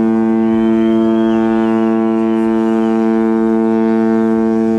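A ship's horn sounding one long, steady blast on a single low note.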